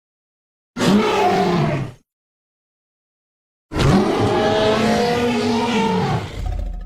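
Two Giganotosaurus roar sound effects separated by dead silence: a short roar of about a second near the start, then a longer one of about three seconds that bends up and down in pitch and fades out at the end.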